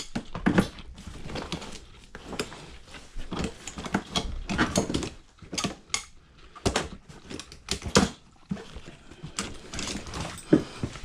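Irregular clicks and knocks of tools and parts being handled while a front-load washer is taken apart.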